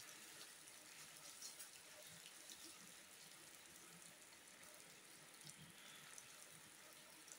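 Rain falling steadily, a faint even hiss with scattered ticks of individual drops.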